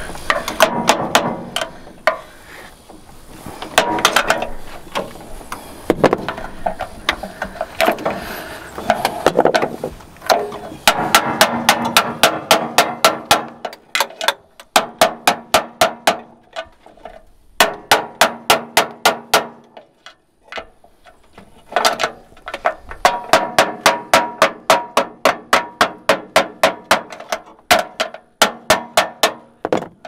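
Hammer blows on metal, struck in quick runs of about five a second with short pauses between, each strike ringing. It sounds like pounding on a stuck bulldozer part that won't budge.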